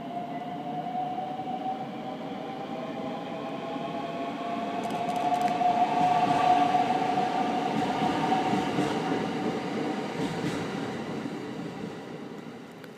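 JR West 521 series electric multiple unit passing, its traction motors giving a steady whine that creeps slightly up in pitch over a running rumble. It grows louder to a peak about halfway through, then fades as the train moves away.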